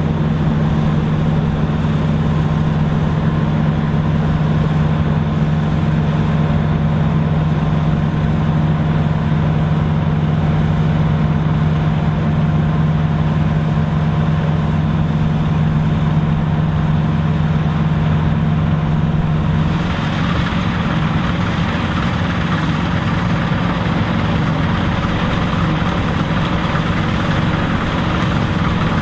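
Dronningborg D900 self-propelled combine running steadily while harvesting, a deep even engine hum. About two-thirds of the way in the hum drops back and a brighter rushing noise comes up.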